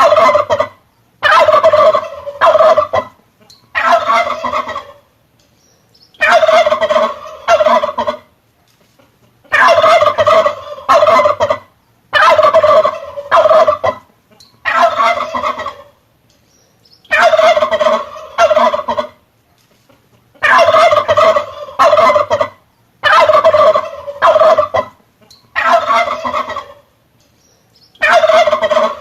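Male turkey gobbling over and over, about one rattling gobble every three seconds, each a second or two long, with short silences between.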